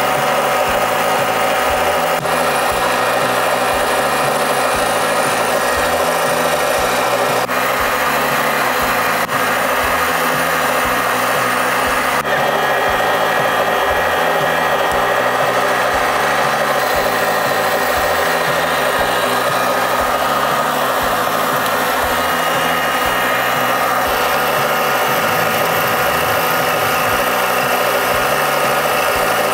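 Metalmaster MML 250x550 metal lathe turning a long bar, the tool taking a steady lengthwise cut, with background music and its stepping bass line under it.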